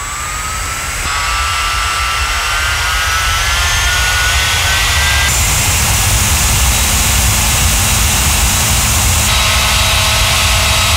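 3D-printed 100 mm electric ducted fan, an 18-blade fan driven by a 1400kv brushless motor, spinning up with a rising whine over the first five seconds, then running steadily at high speed with a loud rush of air. The sound changes abruptly a couple of times.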